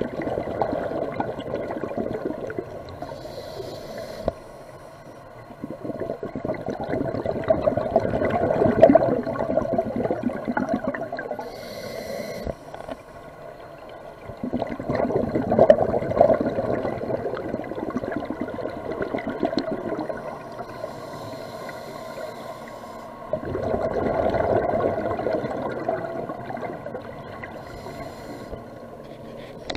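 Scuba diver breathing through a regulator underwater, heard through an underwater camera: about four long bubbling exhalations, each followed by a short hiss of inhalation.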